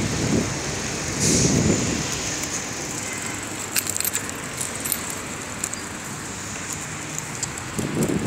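Steady hum of city street traffic, with a few brief rustles and knocks from the phone being carried while walking.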